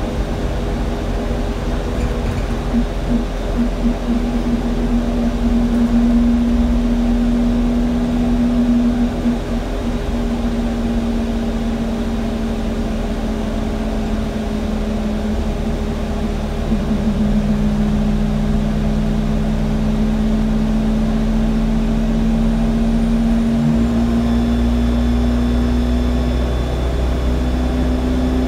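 Alexander Dennis Enviro200 bus's engine and cooling fan heard from inside the rear of the passenger saloon: a steady drone with a strong humming tone. About two-thirds of the way through, the low rumble gets louder.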